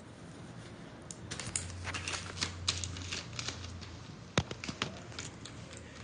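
Small plastic clicks and rustling as hands work a fiber optic fast connector onto a drop cable, with one sharp snap about four and a half seconds in. A low hum runs for about two seconds near the start.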